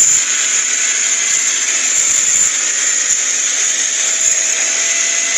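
Onan opposed-twin engine of a John Deere garden tractor running at speed with a steady whine while the tractor drives. It is offered as an example of the engine over-revving when a loose plastic flyball spacer makes the governor overcompensate.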